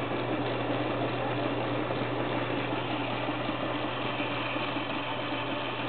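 A 1941 Bendix Deluxe automatic washer running with its cabinet panels off: a steady motor hum under a continuous mechanical rushing noise.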